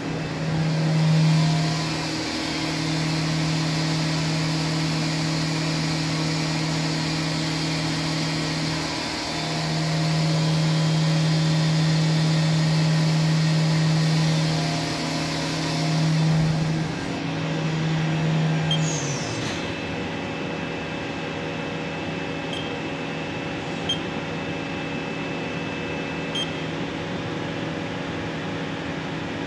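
Haas VM3 vertical machining centre's spindle running at high speed, about 9,500 RPM, with a steady hum and a high hiss. About two-thirds of the way in the spindle winds down, its tone sliding lower until it fades. A softer steady machine hum with a few faint ticks remains.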